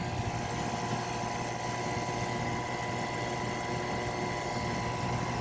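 Outdoor air-conditioner condensing units running: a steady hum with a faint steady whine over it.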